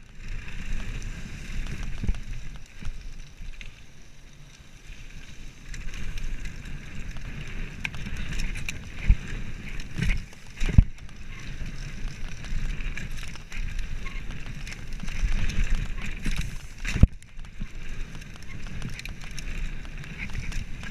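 Mountain bike descending a dirt trail at speed: tyres rumbling over the dirt with wind buffeting the microphone, and a few sharp knocks as the bike hits bumps.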